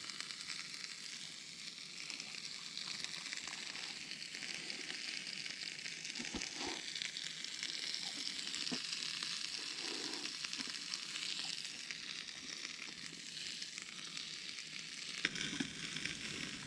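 A cheesy chicken melt frying in butter in a pan, a steady high sizzle with a few faint pops and clicks.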